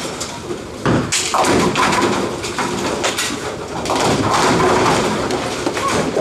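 Bowling ball crashing into the pins about a second in, with the pins clattering, then the continuing rumble and clatter of the bowling alley.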